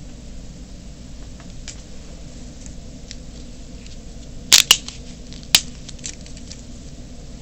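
Scissors snipping tape: three sharp snips, two close together about halfway through and one a second later, with a few faint handling ticks over a steady low hum.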